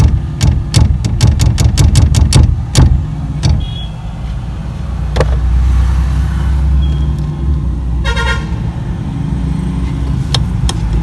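Sharp repeated knocks, about three a second, for the first three seconds. Then a steady low vehicle rumble, with a short car horn toot about eight seconds in.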